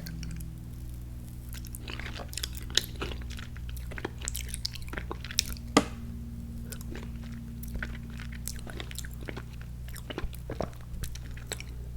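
Close-miked chewing and biting of a filled cookie: irregular crunches and mouth clicks, one sharper crunch about six seconds in, over a steady low electrical hum.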